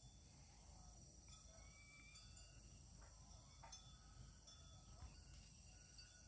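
Near silence: faint outdoor ambience with steady, high-pitched insect chirring and a few faint ticks.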